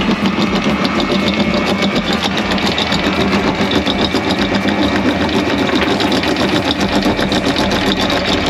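Electric anchor windlass running steadily: its motor hums while the chain links rattle over the gypsy in a fast, even clatter.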